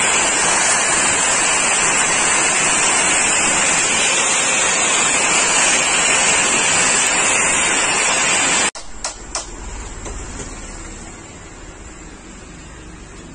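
Handheld electric marble cutter running with no load, a loud, steady rushing noise that cuts off abruptly about nine seconds in. Afterwards only a quieter hum and a few handling clicks.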